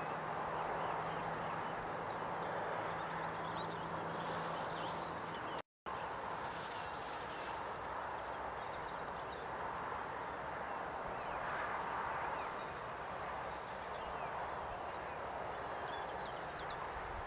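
Steady outdoor rushing noise with faint, short high chirps scattered through it, and a low steady hum that stops about five and a half seconds in. The sound cuts out completely for an instant about six seconds in.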